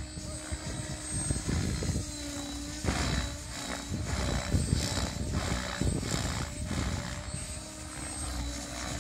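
Compass Specter radio-controlled helicopter flying overhead: a steady rotor hum with a thin high whine, the pitch shifting slightly as it manoeuvres.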